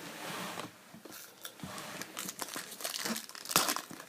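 Foil wrapper of a 2013 Topps Chrome trading-card pack being torn open and crinkled: a hissing rip, then scattered crackles, with the loudest sharp rip about three and a half seconds in.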